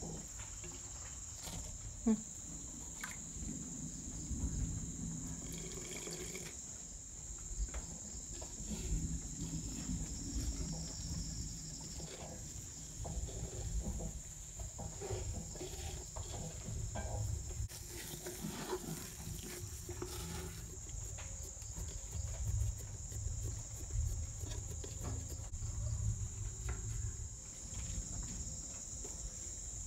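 Hands mixing rice flour with king coconut water in a clay pot: irregular soft scraping, wet squishing and light clicks, over a steady high chirring of crickets.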